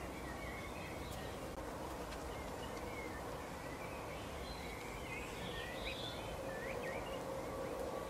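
Small songbirds chirping and twittering faintly, with a cluster of quick rising chirps about five to seven seconds in, over a steady background hiss and a faint steady hum.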